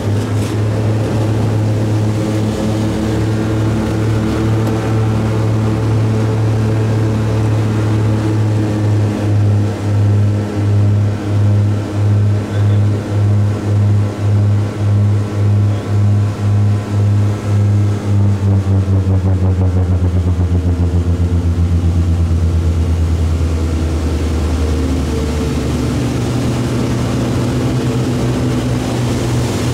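Propeller aircraft engine running at high power through a takeoff and climb, with airflow rushing over the canopy. The steady drone pulses in loudness about once or twice a second for a stretch midway, then settles and shifts in pitch about two-thirds of the way through.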